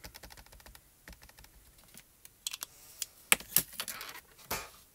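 Rapid light tapping of a small dye-ink cube dabbed onto a clear photopolymer stamp, then a few sharper plastic clacks as the ink and the stamp positioner's hinged acrylic lid are handled, the loudest a little past three seconds in.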